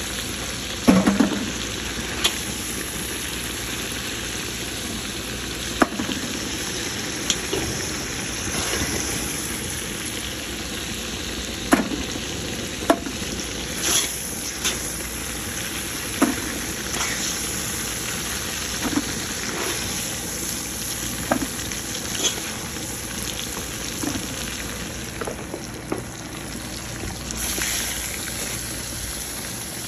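Wild boar pork sizzling steadily as it browns in hot oil in a cast-iron pot. Scattered clinks and scrapes of a spatula knock against the pot as pieces are lifted out and turned.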